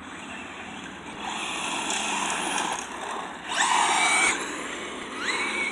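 Traxxas Slash RC car's electric motor whining in bursts as it is throttled, with the pitch climbing on each acceleration; the loudest burst comes a little past halfway, and a short rising whine near the end.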